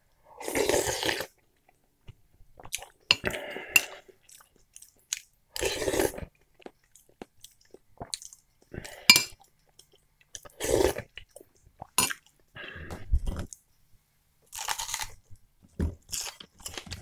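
Close-up eating of borscht from a spoon: mouthfuls taken and chewed in separate bursts every second or two, with a few sharp clicks between them.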